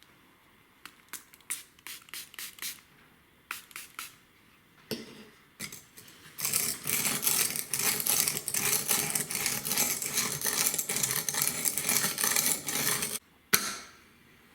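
Buck 103 knife blade being sharpened on a Xarilk Gen 3 sharpener: a run of fast, steady scraping strokes lasting about seven seconds that stops abruptly. Scattered light clicks come before it, and one sharp click comes near the end.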